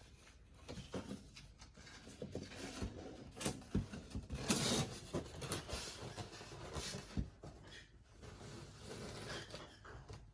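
Handling noise from a collectible statue being turned over in the hands: scattered light taps and knocks with rubbing and rustling, loudest in a rustle about four and a half seconds in.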